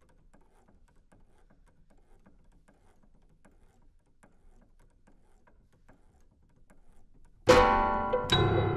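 Grand piano in a contemporary piece: several seconds of near silence with faint scattered taps, then near the end two sudden loud chords less than a second apart, left to ring.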